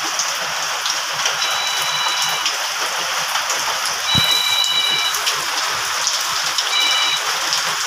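Heavy steady rain falling on a corrugated metal roof and the flooded ground. A thin high steady tone sounds three times over it, each lasting about a second or less, and there is a single low thud about four seconds in.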